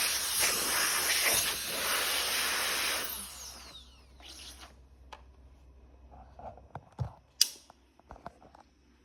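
Electric turbo fan blowing hard, switched off about three seconds in, its motor whine falling as it spins down. Then a few light clicks and knocks, the sharpest one late on.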